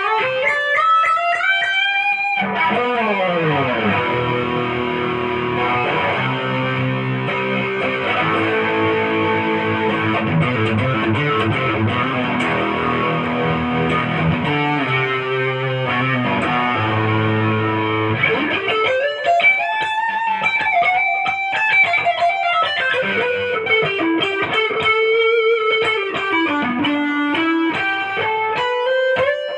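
Vantage electric guitar with humbucker-single-single (HSS) pickups played as a sound test. Fast rising lead runs open it, held low chords ring from about two seconds in until about eighteen seconds, then melodic single-note lead lines with slides and bends follow.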